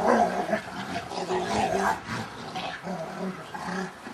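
A Rottweiler and a Staffordshire bull terrier play-fighting, with a string of short growls.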